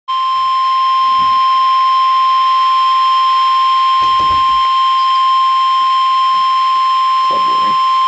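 NOAA Weather Radio's 1050 Hz warning alarm tone played through a Midland weather alert radio's speaker: one loud, steady, unbroken tone. It signals that a warning broadcast, here a flood warning, is about to follow.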